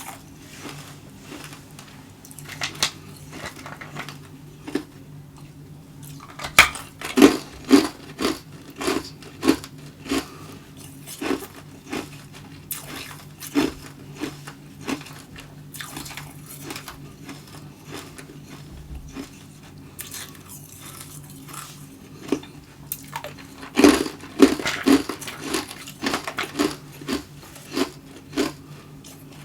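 Tube ice being bitten and chewed close to the microphone: sharp crunches, a few a second, coming in runs. The crunching is loudest about seven seconds in and again near the end.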